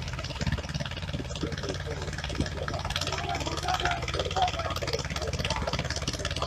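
Vintage tractor engines running steadily under load while pulling ploughs, with an even pulsing beat and faint voices in the background.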